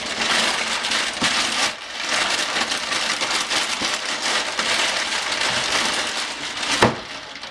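Kitchen wrap crinkling and rustling as a raw tomahawk ribeye is wrapped by hand, with a brief lull about two seconds in and a sharp knock near the end.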